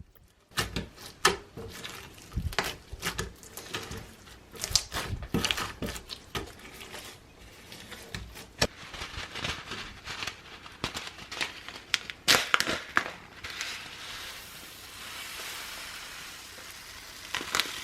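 Sticky clear slime packed with mini foam balls being squished and kneaded by hand, giving dense, irregular crackling and popping. Near the end it turns to a steadier hissing rustle.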